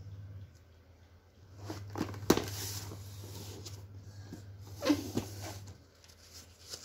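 Cardboard product box being handled and turned over on a tile floor: rustling with two sharp knocks, the louder about two seconds in and another about five seconds in.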